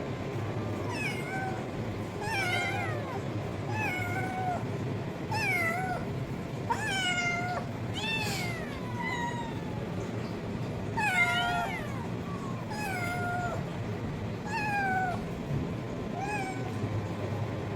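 A cat meowing over and over, about a dozen separate high meows roughly one every second and a half, each rising and then falling in pitch.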